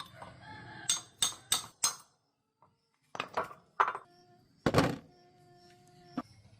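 Metal parts being struck and knocked together: four quick sharp clinks, then after a short gap a few more and one heavier thud, followed by a steady ringing tone that stops with a click.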